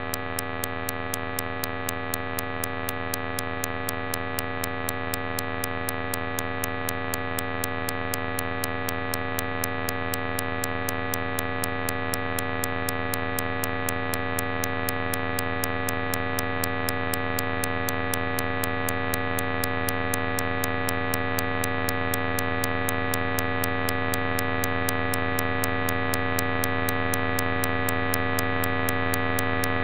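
Electronic drone of many steady, sustained tones stacked from low to high, with a fast, regular ticking of sharp clicks running through it. It slowly grows louder.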